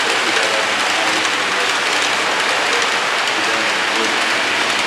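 Steady rushing hiss of an HO scale model passenger train rolling along the track, its metal wheels running on the rails.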